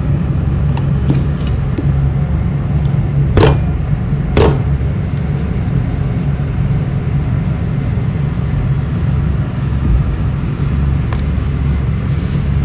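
A steady low rumble, with two sharp knocks about three and a half and four and a half seconds in.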